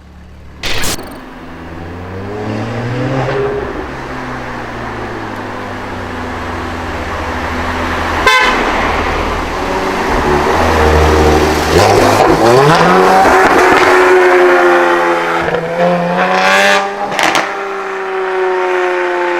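High-performance car engines revving and accelerating, the pitch rising and falling, with several sharp exhaust bangs cutting through.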